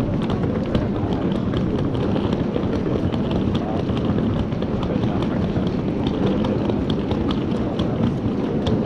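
Ambience of a busy pedestrian street: a steady rumble with passers-by's voices under it, and footsteps clicking on paving stones at a walking pace of about two steps a second.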